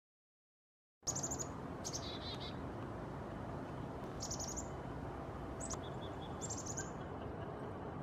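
Black-capped chickadees calling, starting about a second in: five short clusters of rapid high notes, two of them followed by a few lower notes, over steady outdoor background noise.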